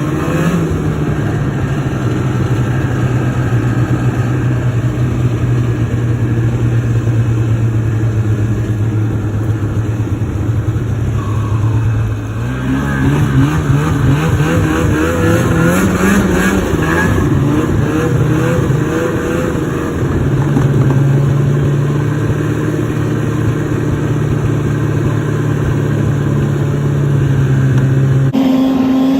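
Snowmobile's two-stroke engine running at a steady pitch, then rising and falling with the throttle through the middle stretch before settling again. The sound changes abruptly shortly before the end.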